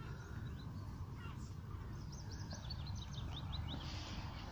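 Outdoor birdsong: small birds chirping, with a quick run of short chirps from about two and a half seconds in, over a steady low rumble.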